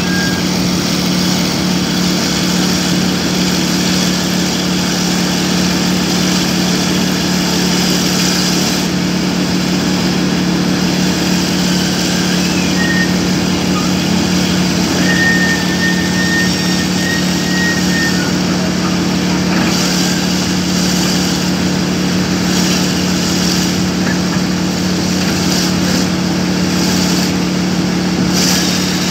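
Excavator's diesel engine running at a steady speed, a constant low hum.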